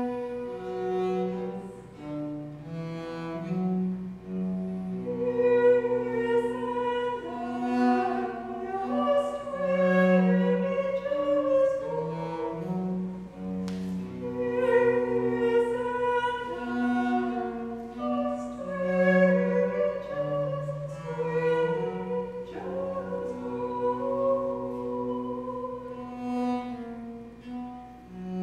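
A woman's voice singing long, slow notes over a bowed cello playing sustained low notes. A single sharp click sounds about halfway through.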